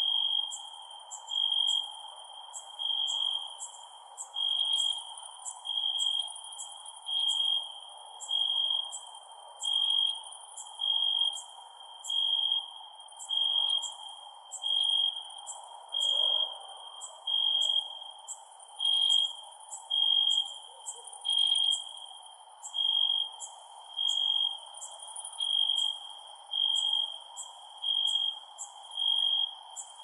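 Crickets chirping: one loud, high chirp repeats about once a second over faster, higher ticking from other insects and a steady insect drone.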